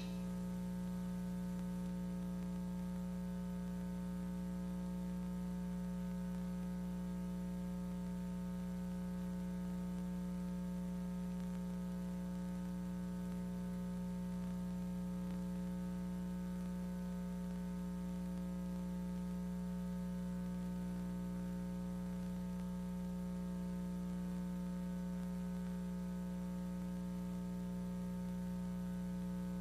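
Steady electrical mains hum with a stack of fainter overtones above it, unchanging throughout, with no programme sound over it.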